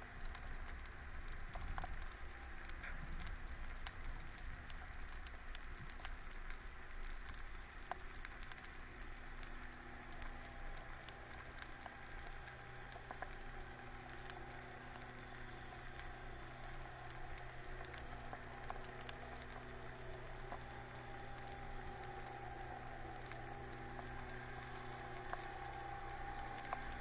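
Underwater ambience: a dense, steady crackle of small clicks. About eight seconds in, the low, steady hum of a boat engine heard through the water joins it.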